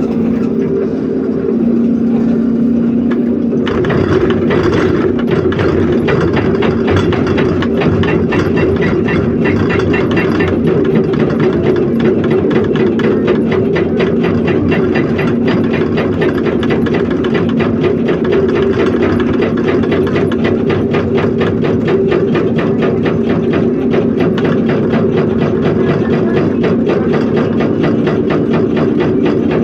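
A large hydraulic excavator's diesel engine running steadily. About four seconds in, a fast, continuous hammering starts over it and keeps on: the excavator's hydraulic rock breaker pounding rock.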